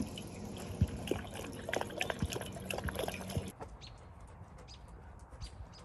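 Water trickling from the pet spout of an outdoor drinking fountain as a dog drinks from it, with scattered small splashes and ticks. About three and a half seconds in it cuts off suddenly to a quieter background with faint ticks.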